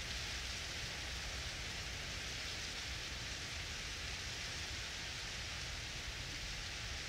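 A steady, even hiss with a low rumble beneath it, unchanging throughout.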